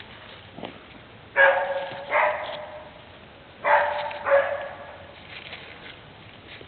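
Goat bleating: four short calls in two pairs, each pair about three-quarters of a second apart.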